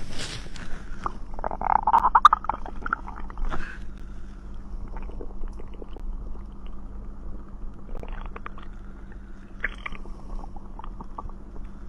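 Stomach gurgling and growling after drinking cider, with a strong bubbling, squeaky gurgle about two seconds in, then scattered small gurgles and clicks and another short run of gurgles later on. A steady low hum runs underneath.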